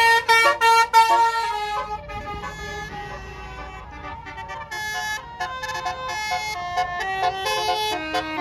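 Bus's 'basuri' telolet musical air horn playing a melody of quick stepped notes, loudest over the first two seconds, with further, quieter runs of notes after.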